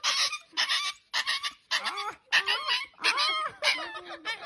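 A dog whimpering: short breathy puffs at first, then a string of short high whines that slide up and down in pitch, fading near the end.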